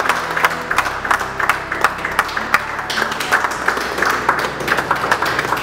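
A small group of people clapping: a steady, irregular patter of hand claps.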